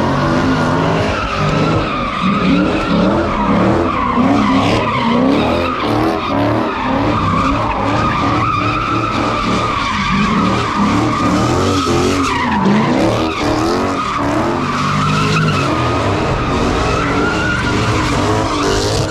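Car doing donuts, a red Chevrolet Camaro: its tyres squeal without a break while the engine is held at high revs, the engine pitch rising and falling as the car circles.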